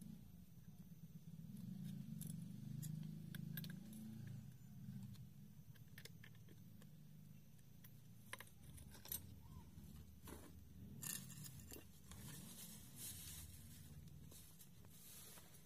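Faint metallic clicks and light scrapes as a flat steel blade is fitted and tightened on a brush cutter's gearhead with a locking tool, mostly in the second half, over a low background rumble.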